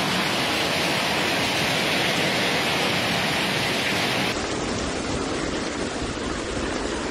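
Heavy rain pouring down in a storm, a steady loud hiss. About four seconds in it cuts to a duller, slightly quieter steady rush.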